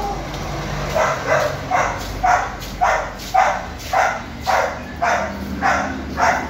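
A dog barking over and over at an even pace, about two barks a second, some ten barks in a row starting about a second in.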